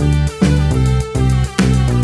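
Instrumental background music laid over the video, a run of short pitched notes.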